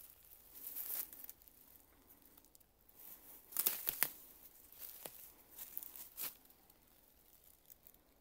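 Footsteps crunching through dry leaf litter, in a few uneven bursts, the loudest about four seconds in.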